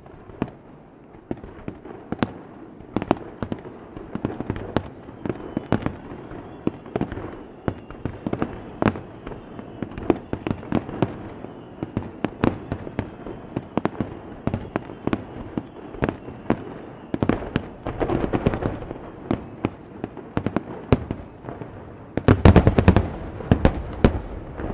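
Aerial fireworks shells bursting, a steady run of sharp bangs about one or two a second over continuous crackling, then a dense barrage of heavy booms near the end.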